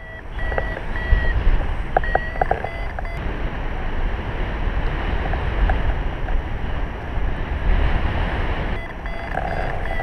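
Airflow buffeting the microphone in paraglider flight: a steady low rumble of wind noise. A few short electronic beeps, of the kind a flight variometer gives, come in about one to three seconds in.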